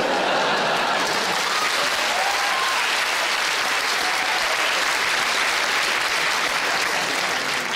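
Large theatre audience applauding, a dense, steady round of clapping that starts abruptly and holds level throughout.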